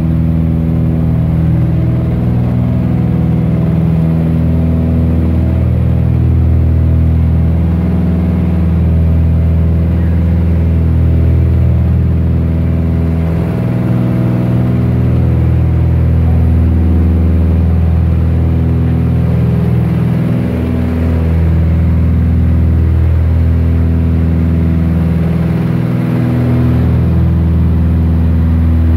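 The twin piston engines and propellers of a Cessna 310D in the climb after takeoff, heard inside the cockpit: a loud, steady drone that swells and fades slowly every few seconds.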